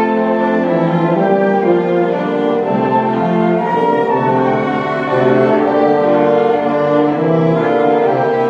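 Orchestra playing a slow passage, bowed strings holding long notes that change every half second or so.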